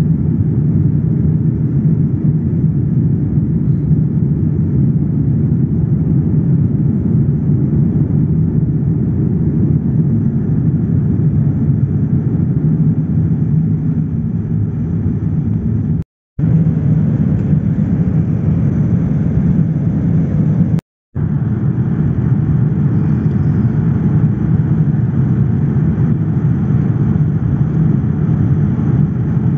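Boeing 787 Dreamliner cabin noise at a window seat in flight: a steady, deep rumble of engines and airflow. It drops out to silence twice, briefly, about halfway through and again some seconds later.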